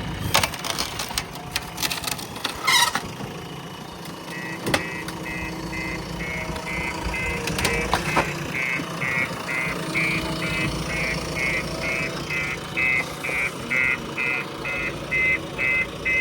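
Diesel engine of a JCB 3DX Plus backhoe loader running steadily, with a few metallic clanks in the first seconds. From about four seconds in, a reversing alarm beeps about twice a second, getting louder toward the end as the machine backs up.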